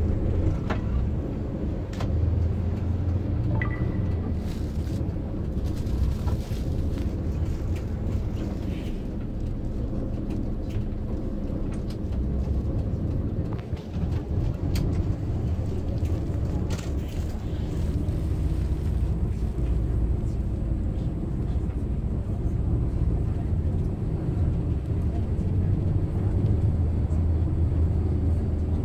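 City bus in motion, heard from inside the cabin: a steady low engine drone and road rumble, with a few short clicks and rattles.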